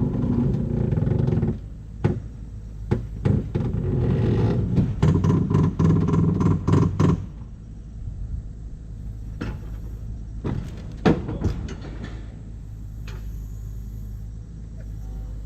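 An engine running, louder in two spells over the first seven seconds and then settling to a lower steady run, with a few sharp knocks and clanks about ten to eleven seconds in.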